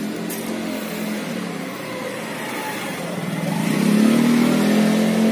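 Nissan Sentra four-cylinder engine running on freshly fitted connecting-rod bearings, growing louder and a little higher in revs about four seconds in.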